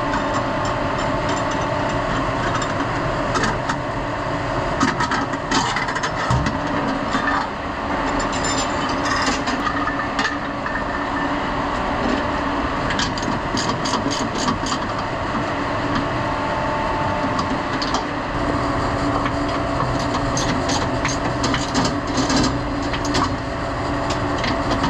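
Steady industrial machinery hum with a low held tone, with scattered clicks and knocks of metal hardware being handled and two runs of rapid clicking, about halfway through and near the end.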